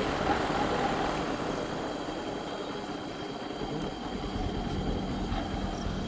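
Motorcycle engine idling at low revs. Its note grows stronger about four seconds in.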